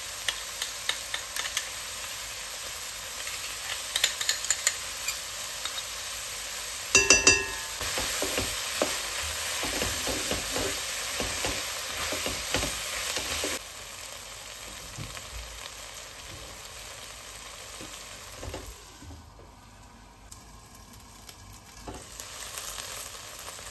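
Diced onion, carrot and celery sizzling in a heavy pot as tomato paste is stirred through, with a spoon scraping and clicking against the pan. There is a ringing knock about seven seconds in, and the sizzle drops quieter about halfway through.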